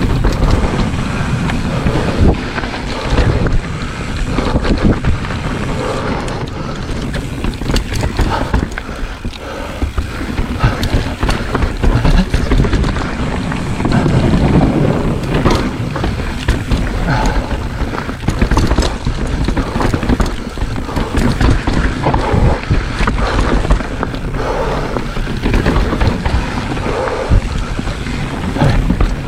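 Kona Process 134 mountain bike descending a loose, rocky trail: wind buffeting the microphone over a steady rumble of tyres on dirt, with frequent clattering knocks and rattles as the bike hits rocks and bumps.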